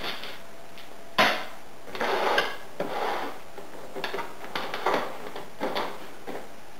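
Stiff clear plastic packaging tray crackling and creaking as a heavy CPU cooler heatsink is pulled out of it, with a sharp crack about a second in that is the loudest sound, then a run of irregular crinkles.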